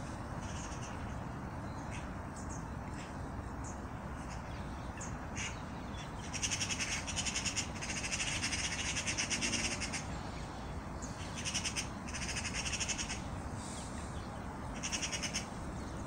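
A bird's harsh, rattling calls in several bursts of a second or two, starting about six seconds in, with a few short chips before them. Steady wind noise on the microphone runs underneath.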